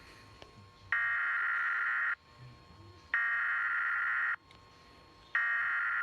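Emergency Alert System SAME header: three bursts of shrill digital data tones, each about a second long with about a second's pause between. These encoded bursts carry the alert's data and open a severe thunderstorm warning.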